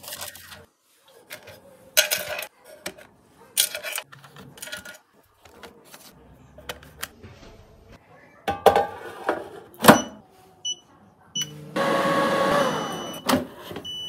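Tefal Easy Fry & Grill air fryer: scattered knocks and clicks as the basket is handled and put in place, then several short high beeps from the touch panel. Near the end comes about two seconds of louder steady noise.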